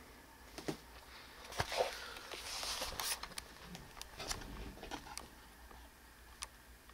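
Soft rustling of blankets and bedding with a scatter of light clicks and taps, busiest in the first five seconds, then settling back to quiet room tone.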